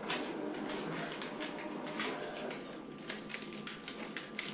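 Graphtec cutting plotter running a small test cut in window tint film, with short clicking and rustling strokes and a thin steady whine coming in about halfway through. Near the end, the tint film rustles as it is handled by hand.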